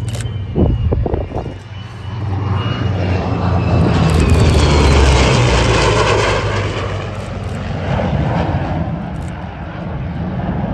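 Formation flyby of an F-35A jet with a P-51 Mustang and a P-38 Lightning: engine noise swelling to its loudest about four to six seconds in, with a whine falling in pitch as they pass, then easing off.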